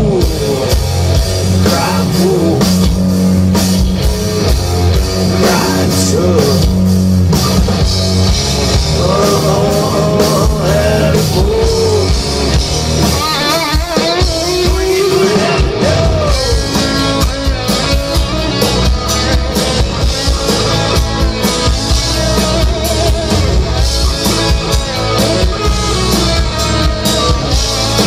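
Live rock band playing loudly: electric guitar, bass guitar, keyboard and drum kit, with a wavering melodic line in the middle.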